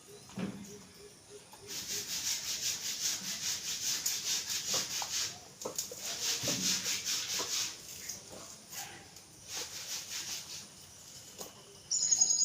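Fast, repeated rubbing strokes in two stretches, with a short high squeak near the end.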